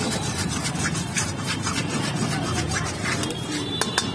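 Spatula scraping and stirring a thick paste in a stainless steel kadhai, with repeated irregular scrapes of metal against the pan.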